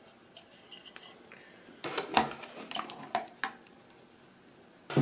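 Packaging being handled: a clear plastic parts bag crinkling and small metal hardware clinking, with a run of clicks and rattles from about two seconds in and a sharp knock near the end.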